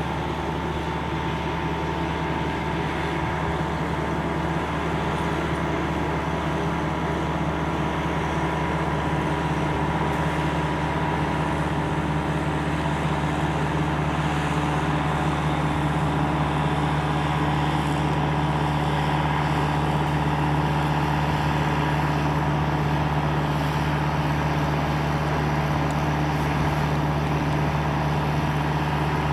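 Steady road and engine drone of a moving vehicle, with a constant low hum and no sudden changes.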